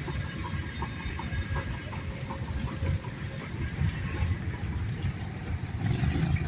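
Steam engines running: a steady low rumble with faint, irregular ticks above it and no whistle.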